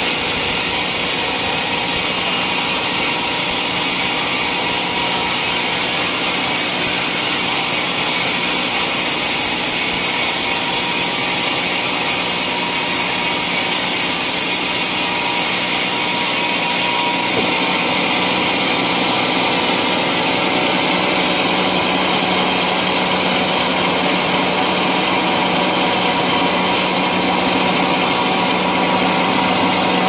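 Homemade band sawmill cutting a teak log into boards: the band saw blade runs steadily through the wood under power, a continuous dense whine and hiss. Its high hiss changes slightly about halfway through.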